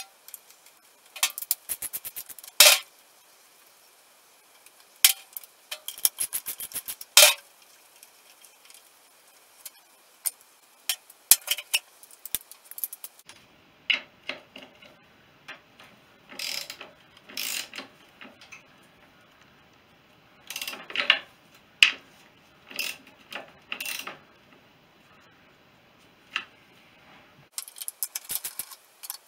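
Ratchet socket wrench clicking in quick runs as the bolts of a motorcycle's inner primary chaincase cover are undone, with single metallic clinks from the tools between runs.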